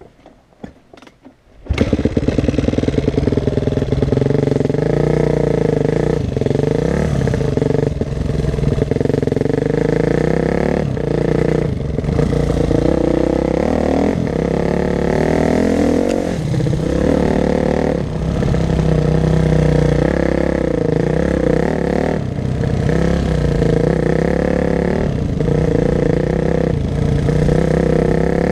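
Yamaha YZ250F dirt bike engine, heard from a camera on the bike: almost quiet for the first couple of seconds, then the engine comes in loud as the bike is ridden hard along a dirt track. The engine note dips briefly every couple of seconds and picks up again.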